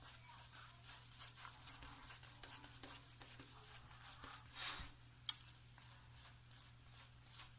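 Faint soft swishing and scratching of a two-band badger shaving brush working lather in a shave bowl, over a low steady hum. A brief louder swish comes about four and a half seconds in and a single sharp click just after.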